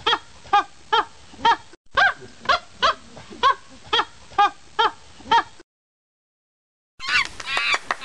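A series of short animal calls, about two a second, each rising then falling in pitch, that stops suddenly about five and a half seconds in. After a second and a half of silence, a faster, denser burst of different calls starts near the end.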